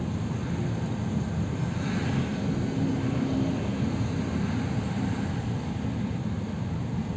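Car driving on a highway, heard from inside the cabin: a steady low rumble of engine and tyre noise.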